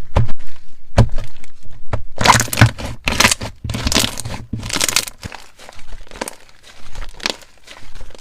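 Slime mixed with ice being squeezed and pressed, the ice crunching and cracking inside it with a dense, irregular crackle. The crunches come in several loud bursts between about two and five seconds in, then settle into lighter crackling.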